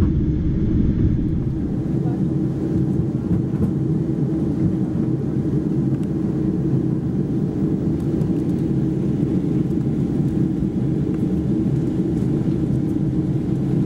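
Steady low rumble inside the cabin of a Boeing 747-8 Intercontinental taxiing, its GE GEnx-2B engines running at taxi power and heard through the cabin wall at a window seat over the wing.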